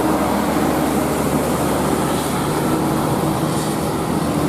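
A bus passing close by: steady engine and road noise.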